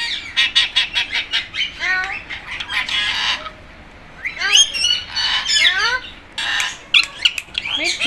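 Indian ringneck and Alexandrine parakeets chattering and squawking: quick runs of short harsh notes and whistled chirps that slide up and down in pitch, with a brief lull about halfway through.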